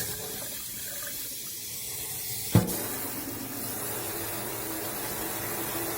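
Water running steadily through a faucet hose sprayer attachment, a steady hiss of spray, with one sharp click about two and a half seconds in.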